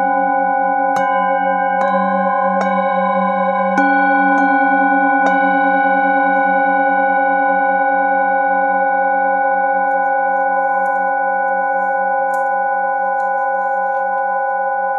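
Metal singing bowls struck with a mallet six times in the first five seconds or so, each strike adding its tone to the ringing. The bowls then ring on together, slowly fading, with a slow pulsing beat in the lowest tone.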